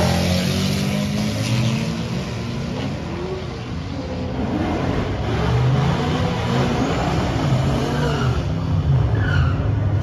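A pickup truck and a Camaro at full throttle down a drag strip, their engines pulling away and fading, the pitch climbing again and again as they go up through the gears.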